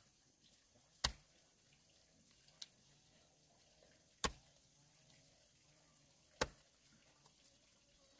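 Three sharp knocks two to three seconds apart, with a lighter tap between the first two, over a faint quiet background.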